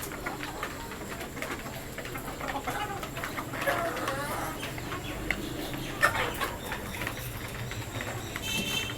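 Backyard desi chickens clucking and calling while they feed, with a few sharp clicks and a brief high-pitched call near the end.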